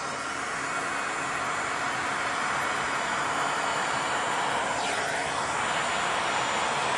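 Handheld electric heat gun blowing a steady rush of hot air over wet acrylic pour paint.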